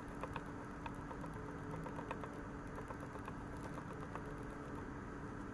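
Faint, irregular clicks and taps of metal knitting needles working stitches in a purl row, over a steady low hum.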